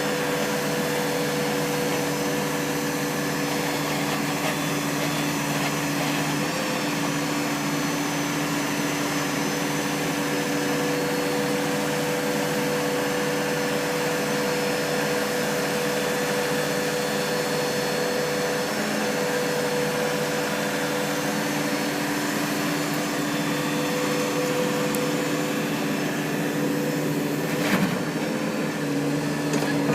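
Backhoe engine running steadily with a constant whine, and a short knock near the end.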